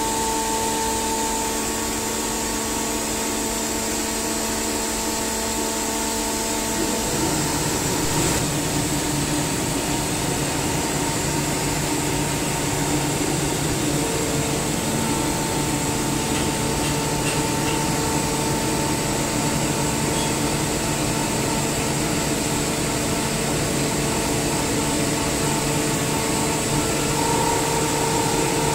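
SCR Comp SCR50M rotary screw air compressor running steadily, a hum with a few held tones over a steady hiss. About seven seconds in it turns deeper and a little louder, then holds.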